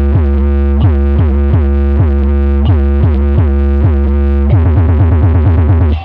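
Loud bass-heavy electronic music played through a car sound system with an Eros 18-inch subwoofer driven by an HD 8000 amplifier: a strong, steady bass under rapid repeating synth notes, cutting out briefly at the very end.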